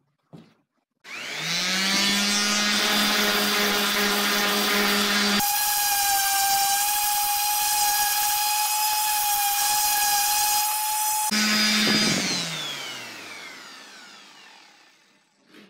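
Random orbital sander switched on and sanding a hickory ax handle: the motor spins up, runs steadily, jumps to a higher whine for several seconds mid-way, then drops back. It is switched off near the end and winds down.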